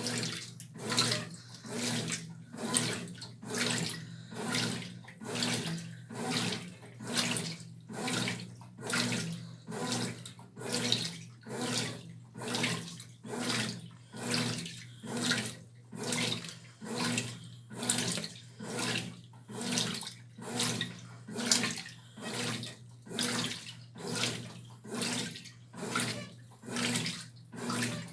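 Brastemp Tira Manchas Pro 12 kg washing machine agitating its load: a steady motor hum with water and clothes sloshing in regular surges, about one a second, as the drum's motion reverses. It starts suddenly at the beginning.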